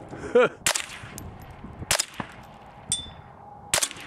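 Three gunshots from a magazine-fed gun fired in steady succession, a little over a second apart. Just before the first shot comes a short, falling whoop of a voice.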